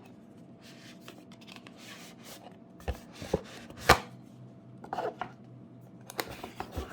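Handling noises as a Ring video doorbell is taken out to be set up: a scattering of sharp knocks and clicks, the loudest about four seconds in, with a small cluster near the end.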